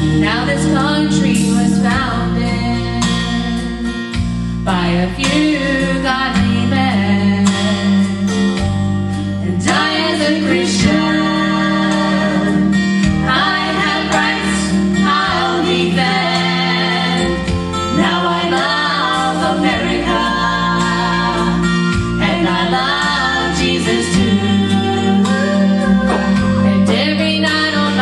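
Gospel song with singing, a female voice among them, over guitar-led accompaniment.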